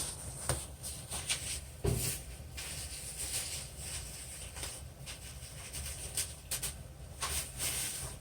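Rustling and crinkling of packaging being handled, with scattered clicks and a dull knock about two seconds in.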